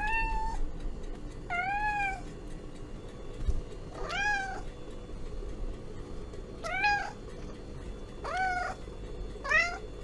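Domestic cat meowing six times, one call every one and a half to two and a half seconds. Most calls rise then fall in pitch. A steady low hum runs underneath.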